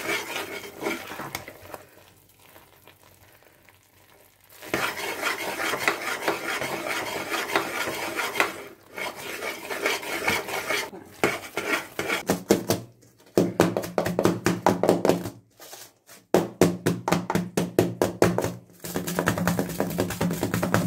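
Metal spatula stirring and scraping thick, bubbling ghee Mysore pak (gram flour cooked in sugar syrup and ghee) in an aluminium pan, the mixture at its porous honeycomb stage and ready to set. After a short lull about two seconds in, the stirring resumes, and from the middle on comes a fast run of sharp scraping strokes as the mixture is scraped out of the pan into a greased plate.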